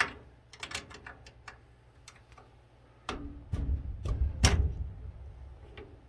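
Metal clicks and clinks of a tool working the collar nut on an oil burner's fittings. About three seconds in come a few louder knocks over a low rumble, lasting about two seconds.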